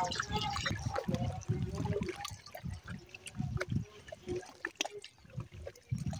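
Small sea waves lapping and splashing at the shoreline in irregular surges.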